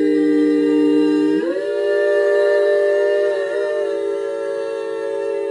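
A four-part women's a cappella quartet humming a held wordless chord; about a second and a half in the chord moves up, the lowest voice rising to join the others, and is then sustained.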